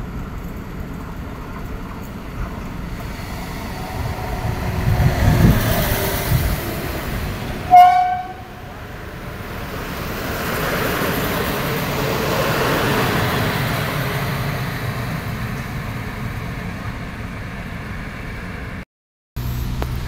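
Passenger diesel multiple unit approaching with a building rumble, giving one short horn toot about eight seconds in, then rolling past along the platform with a steady running noise.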